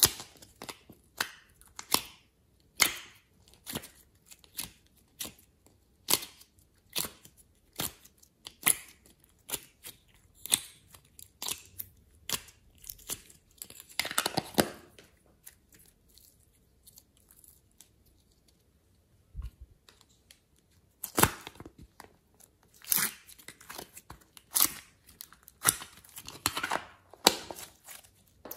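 Hands handling slime and its plastic containers, making sharp crackling clicks and pops about one or two a second. There are longer stretches of crackling about halfway through and again near the end, and a quieter gap just after the middle.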